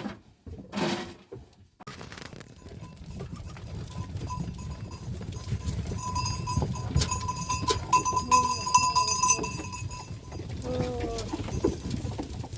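Goats bleating: two short calls at the start and a few more near the end, over a steady rushing noise that comes in suddenly about two seconds in, with a faint steady high tone.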